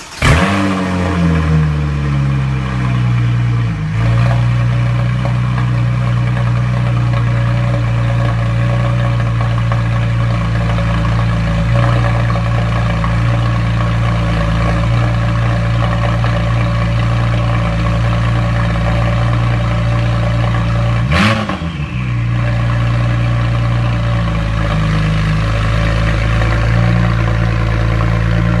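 Porsche 911 Turbo S twin-turbo flat-six catching as it is started, flaring and then settling into a steady idle over the first couple of seconds. About twenty-one seconds in, a single short throttle blip rises and falls, and then it idles on.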